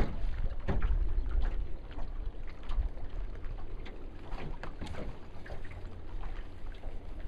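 Wind rumbling on the microphone over a boat on choppy water, with small waves lapping and slapping irregularly against the hull.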